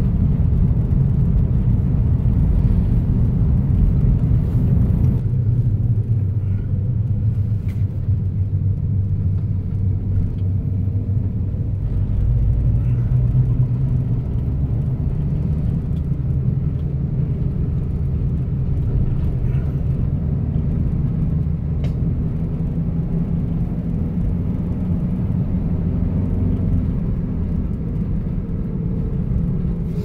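A car driving along a road: a steady low rumble of engine and road noise.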